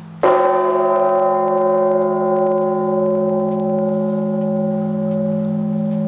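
A 7,150 kg church bell struck once, about a quarter second in, then ringing on with many overtones that slowly fade, over a deep steady hum that carries on underneath.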